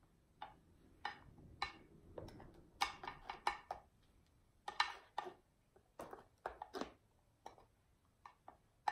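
Spatula scraping and tapping against a stainless steel mixing bowl and glass baking dish while spooning out pudding: a run of faint, short, irregular scrapes and clicks.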